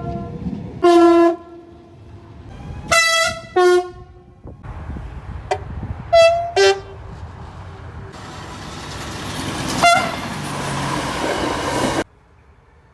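Train horns sounding in short blasts over running-train noise. There is a loud blast about a second in, two more around three seconds, and several short toots around five to six and a half seconds. Then a train rushes past with rising hiss until the sound cuts off abruptly near the end.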